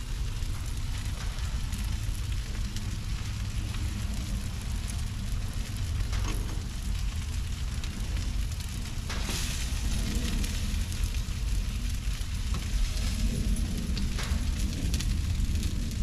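Chicken quarters sizzling and crackling on an open gas grill, over a low steady rumble; a few louder crackles stand out about six, nine and fourteen seconds in.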